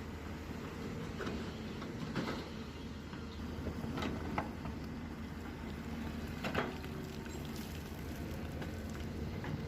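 Hyundai excavator's diesel engine running steadily, with several sharp knocks and clatters scattered through, the sound of the bucket working mud and stones into a truck.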